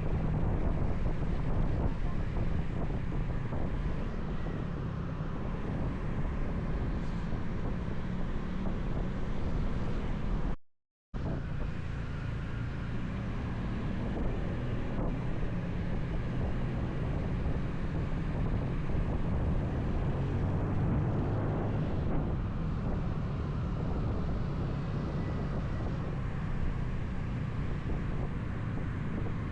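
Motorcycle engine running steadily under way, mixed with wind rumbling on the action camera's microphone. The sound drops out completely for a moment about eleven seconds in.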